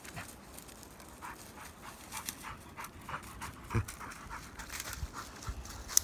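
Labrador panting in quick, repeated breaths, with a dull thump about two-thirds of the way through.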